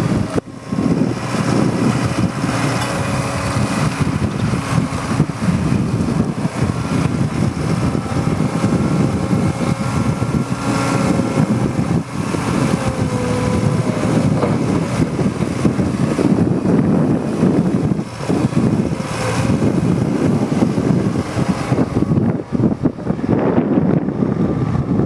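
Liebherr 914 Compact excavator running steadily while working, its diesel engine and hydraulics making a continuous mechanical noise, with faint whining tones that shift in pitch now and then.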